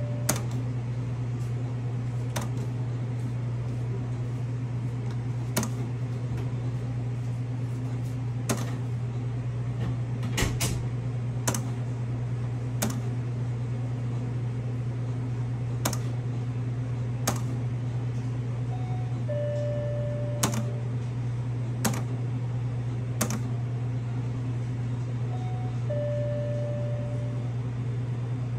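Slot-style game machine playing out automatic bonus spins: a steady low hum with a sharp click every second or two, and two short beeps in the second half.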